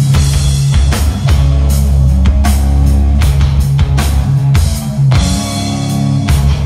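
Psychedelic stoner rock band playing live and loud: electric guitars and bass holding heavy low notes under steady drum and cymbal hits, with no singing.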